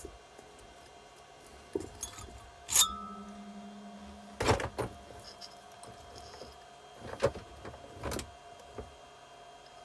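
Scattered knocks and clinks of metal tools and engine parts being handled on a workbench. The loudest is a sharp knock about three seconds in, with a short metallic ring after it.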